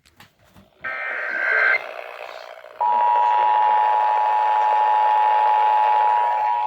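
Emergency Alert System test received over a radio, with a hiss under it. First comes a short warbling screech of a SAME digital header burst. After a second's pause, at about 3 s, the steady two-tone EAS attention signal (853 and 960 Hz) starts and holds.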